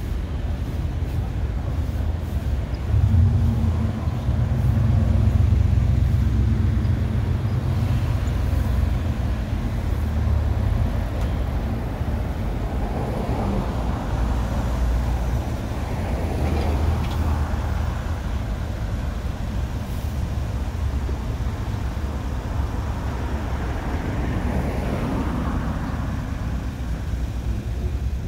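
Road traffic: a low engine rumble, loudest from about three to eight seconds in, with vehicles swelling past a couple of times later on.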